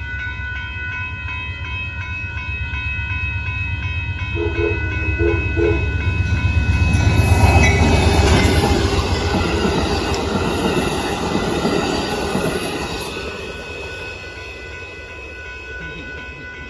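Amtrak Texas Eagle passenger train passing a road crossing. The crossing bells ring steadily, a few short horn toots come about four to six seconds in, and then the rumble of the diesel locomotive and the clatter of the cars swell to a peak about seven to eight seconds in and fade away by about fourteen seconds.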